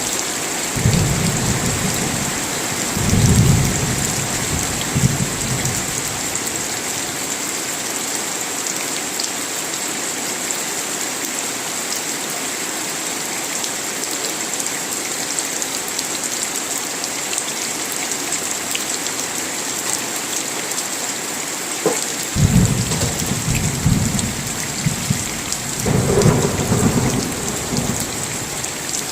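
Steady rain with thunder: low rumbling thunder in the first few seconds, then only the rain until more thunder rolls in about 22 seconds in and keeps rumbling.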